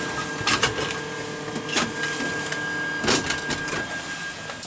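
Steady electrical whine in a parked Twin Otter's cockpit, with irregular sharp clicks and knocks over it. The whine stops near the end.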